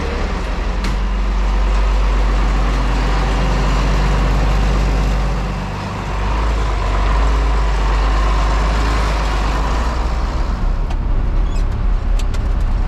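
John Deere loader tractor's diesel engine running steadily as the tractor drives off, dipping briefly about six seconds in. Near the end, light clicks and rattles sound over the engine.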